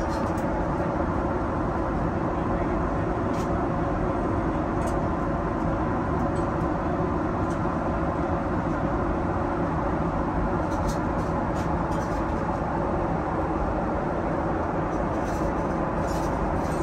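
Steady cabin noise of a Boeing 777-300ER airliner in flight: an even, unchanging rush of airflow and engine noise, with a few faint small clicks.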